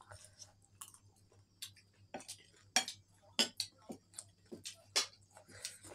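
Eating noises at close range: a dozen or so sharp, irregular clicks and clinks of cutlery and dishes, the loudest in the middle stretch.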